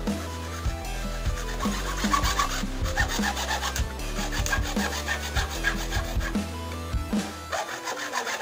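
Hacksaw cutting through a white PVC pipe with quick back-and-forth strokes.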